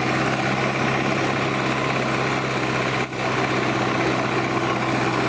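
Zetor tractor diesel engines running hard at steady revs under heavy pulling load, their exhausts smoking black. There is a brief dip in the sound about three seconds in.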